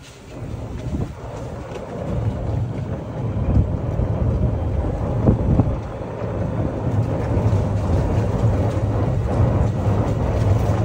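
Open golf cart riding along a paved path: a steady low rumble of tyres on the paving and wind against the open cab, growing louder over the first few seconds as the cart picks up speed.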